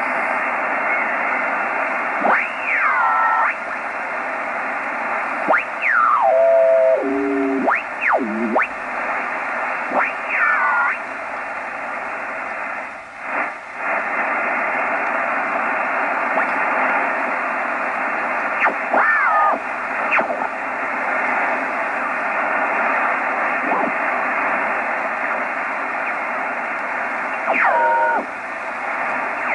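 Yaesu FR-101S shortwave receiver tuning across the band: a steady hiss of band noise with several signals and distorted voices sliding quickly in pitch as the dial sweeps past them. The hiss dips briefly around the middle as the preselector is turned.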